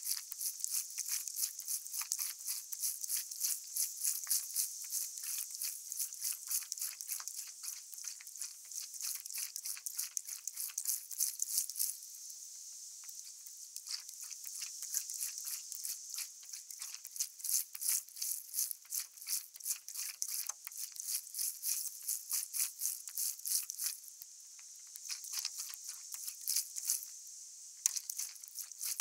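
Water splashing and trickling around a moving stand-up paddleboard as it is paddled: a dense, irregular high crackle that eases off briefly a few times.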